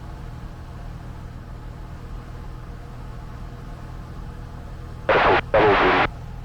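Steady low drone of a Cessna 172 Skyhawk's piston engine and propeller in cruise flight, heard from inside the cabin. A short burst of a voice comes in about five seconds in.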